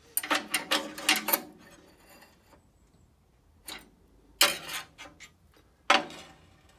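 A metal square being set down and moved on an extruded aluminium bandsaw table, with the knocks and scrapes of metal on metal. A quick run of clicks comes in the first second and a half, then a few more knocks later, the last sharp one near the end.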